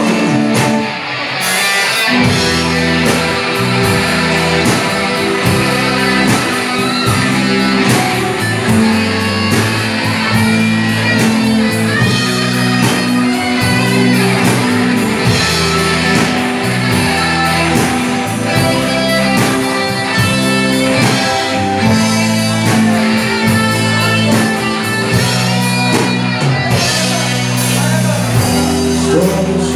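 Live rock band playing, electric guitar to the fore over bass and a steady beat.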